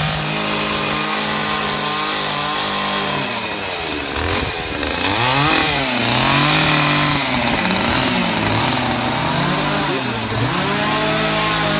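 Two-stroke chainsaws running at a carving session. One holds a steady high speed for the first few seconds, then its pitch repeatedly drops and climbs back as it bogs into the wood and frees up again, with another saw running alongside.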